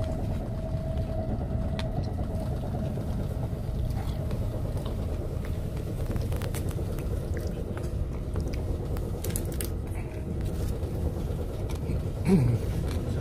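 Steady low rumble of a train running, heard from inside the passenger carriage, with a faint steady tone that fades out in the first few seconds. Scattered small clicks sit on top, and a brief gliding sound comes near the end.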